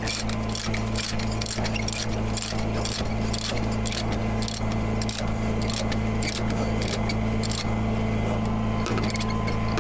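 Chain binder on a tie-down chain being tightened: a run of sharp metallic clicks and chain clinks, a few a second, over a steady engine hum.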